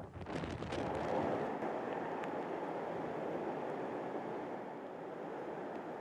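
Strong storm wind buffeting the microphone: a rushing noise that comes in suddenly with a few crackles, then holds steady.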